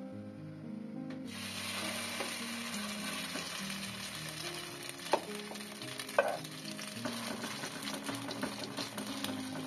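Potato mixture frying in hot oil in a wok. A steady sizzle starts suddenly about a second in, with two sharp clicks a second apart about halfway through.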